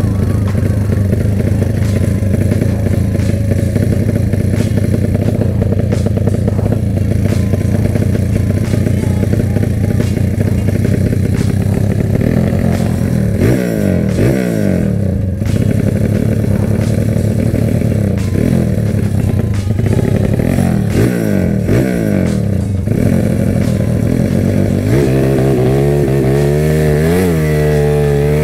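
Honda Megapro single-cylinder four-stroke, built to a 68 mm bore and 70 mm stroke with a Keihin PWK 35 carburettor and DSM exhaust, running under way at a steady pace. Partway through, the revs dip and pick up again a few times, and near the end the throttle is opened and closed repeatedly so the pitch swings up and down.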